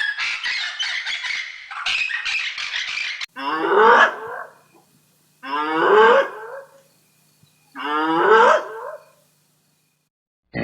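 Rapid, harsh bird squawking for about three seconds, which cuts off. Then a farm animal gives three drawn-out calls about a second apart, each wavering and rising in pitch.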